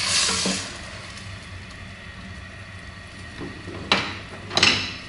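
A wooden spoon stirring tomato sauce and scampi in a hot stainless steel pan: the sauce sizzles, flaring up briefly at the start and again near the end, with a sharp knock of the spoon against the pan about four seconds in.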